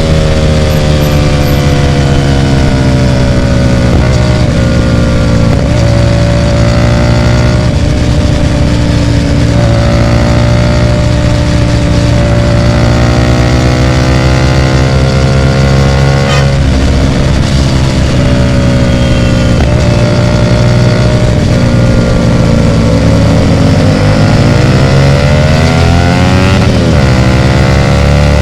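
Hyosung GT250R 250 cc V-twin running loud through an aftermarket Ixxile Racing exhaust while riding, its engine note falling and rising with the throttle, with a quick dip and rise near the end.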